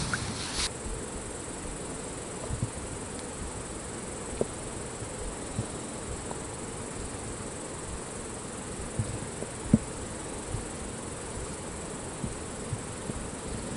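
Crickets chirring steadily, with a few faint clicks and taps as hands work a plastic syringe of bait paste.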